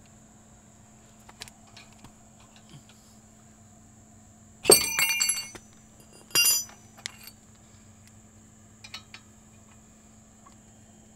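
Metal tools clinking and ringing against each other in two short bursts, about five and six and a half seconds in, with a few light clicks between.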